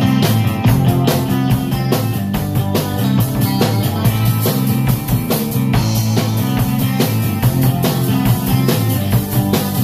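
Rock song playing with a drum kit played along to it: a steady rock beat of evenly spaced drum hits over bass and guitar.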